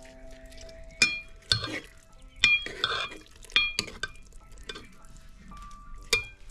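Steel ladle stirring thick karhi in a stone cooking pot: about six sharp clinks with a short metallic ring as the ladle knocks the pot, between stretches of liquid sloshing.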